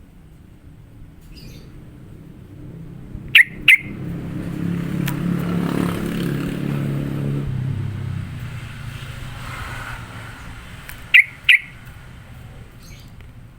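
Yellow-vented bulbul giving two sharp calls in quick succession, then another pair about eight seconds later. Between the pairs a passing motor vehicle rumbles, swelling and fading away.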